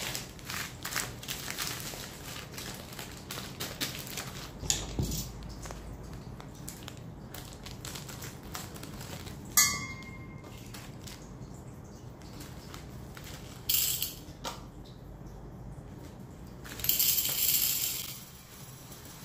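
A plastic bag of coarse bath-salt crystals crinkling and rustling as it is handled and opened, with small clicks and knocks and one sharp click with a short ring about halfway through. Near the end, salt crystals pour in a hissing stream into an acrylic jar for about a second and a half.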